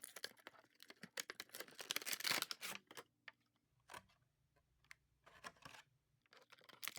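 Toy packaging being opened by hand: a quick run of small plastic and cardboard clicks and crinkles for about three seconds, then a few scattered taps.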